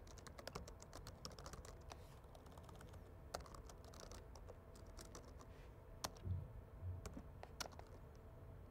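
Faint typing on a computer keyboard: key clicks in quick, uneven runs.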